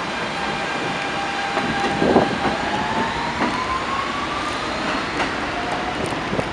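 Subway train running, with steady rumble and rail noise and a whine that rises slowly in pitch from about two seconds in, plus a few light knocks.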